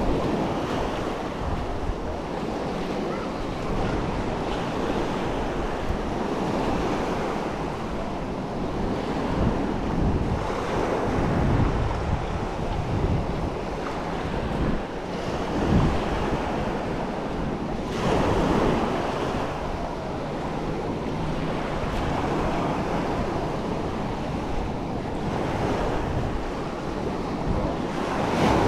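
Sea waves breaking and washing up on a sandy shore, swelling louder every few seconds, with wind buffeting the microphone.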